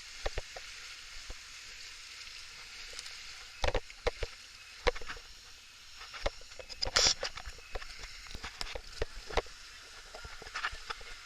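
River water rushing steadily around a raft, broken by several sharp splashes and knocks, the loudest about seven seconds in.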